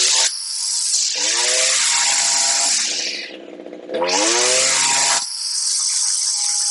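Echo SRM string trimmer's two-stroke engine, fitted with a tuned HiPA replacement carburetor, revved to full throttle twice with a high-pitched whine. It drops back to a quieter idle for a moment between the blasts without dying.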